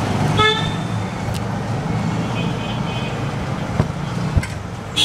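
Steady street-traffic rumble from passing vehicles. A brief pitched tone about half a second in, and a few light clicks and knocks later on.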